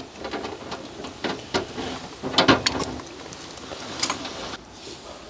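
Plastic spoon stirring and scraping rice in an aluminium-foil tray on a charcoal grill: irregular scrapes, clicks and foil crinkles over a steady crackling sizzle.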